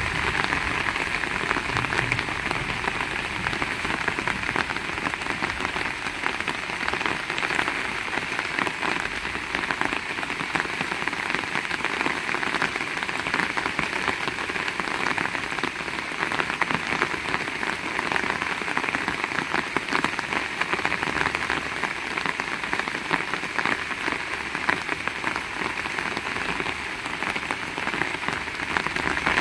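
Heavy rain falling steadily, a dense patter of countless drops hitting surfaces.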